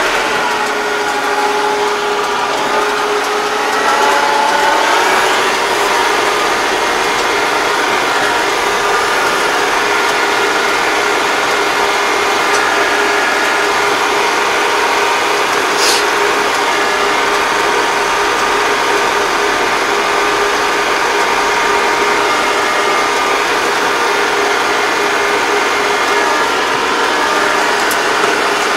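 Yanmar tractor's diesel engine running steadily under way, heard from inside the cab. Its pitch dips and then climbs back in the first few seconds before settling, with one sharp click about halfway through.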